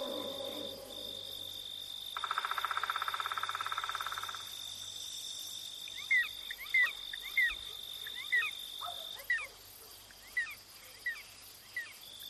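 Night-time nature ambience: crickets trilling steadily at a high pitch. About two seconds in, a rapid rattling animal call lasts a couple of seconds. From about six seconds on, a run of short falling chirps repeats roughly every half second.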